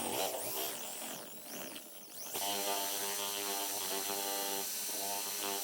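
Electric drill spinning a mixer in a container of epoxy resin, its motor whine wavering in pitch for the first two seconds, then running at a steady speed.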